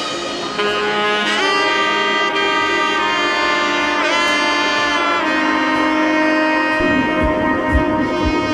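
Background music: a melody of long held notes, with one note bending about four seconds in, and a drum beat coming in near the end.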